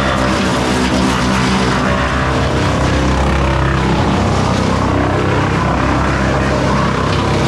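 Morbark Beever M12R wood chipper running loud and steady while chipping branches: a constant engine drone under a dense noise of chipping.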